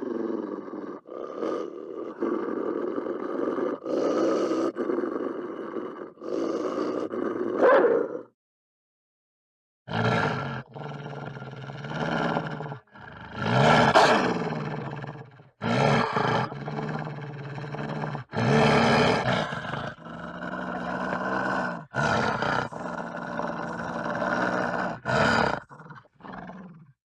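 Wolf vocalizing in a string of rough, noisy calls rather than one clear, smooth howl. Many of them cut off abruptly, as if edited. A pause of about two seconds falls about a third of the way in, and one call around the middle rises and falls in pitch.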